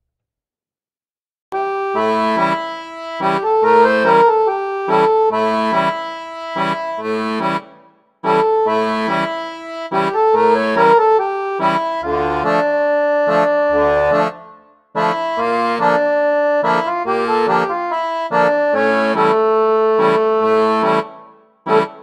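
Background instrumental music in a steady rhythm of repeated chords, starting about a second and a half in and breaking off briefly twice.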